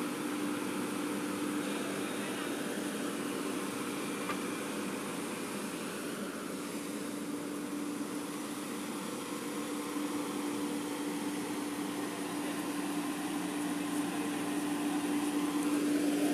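Diesel engine of a JCB tracked excavator running steadily, a constant hum that grows louder near the end.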